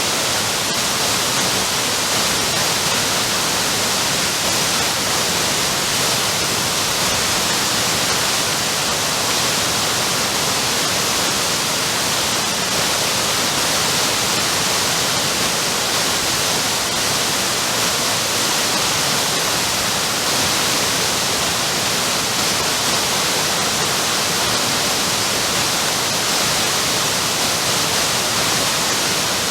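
Waterfall: a steady, hissy rush of falling water that holds unchanged throughout.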